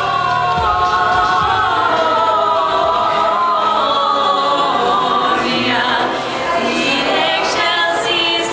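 Background music: a choir singing in harmony, with long held notes.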